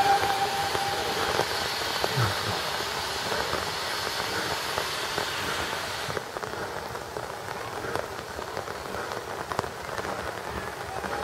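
Rain pattering steadily on umbrellas and the ground, with many small drop ticks. Over it, a steam hiss from the standing FS class 685 steam locomotive cuts off about six seconds in. The tail of a steam whistle note fades away at the very start.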